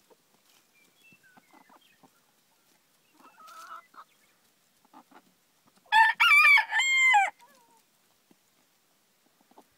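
A rooster crows once about six seconds in: a high crow of a few quick broken notes ending on one held note that drops away at the end. Around it, faint pecking and soft sounds from hens feeding.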